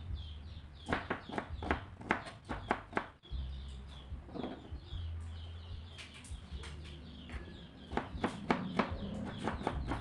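Kitchen knife chopping an onion on a plastic cutting board: runs of quick, sharp taps about a second in and again near the end, with a pause in between.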